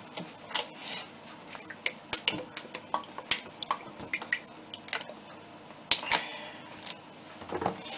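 Oil poured from a plastic bottle into a large empty stainless-steel pot, with scattered irregular clicks and ticks as the bottle glugs and the oil drips.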